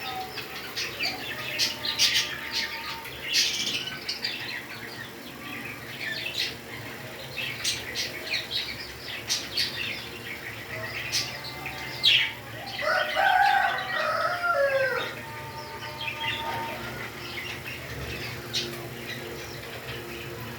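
Pet parrots chirping, with many short, sharp high chirps throughout. About 13 seconds in comes a louder run of squawky, whistling calls lasting a couple of seconds.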